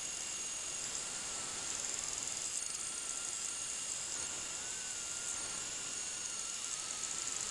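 MakerBot Replicator 2 3D printer at work: a steady fan hiss with a faint, slightly wavering whine from the stepper motors as the extruder head moves back and forth.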